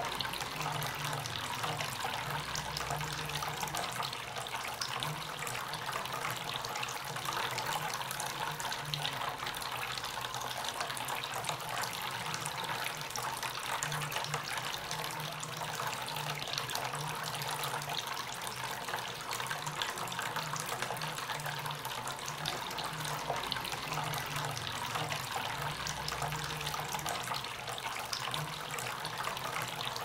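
Tabletop fountain water falling from a tap spout in a thin stream into a small water-filled basin: a steady, continuous splashing trickle, with a low hum underneath.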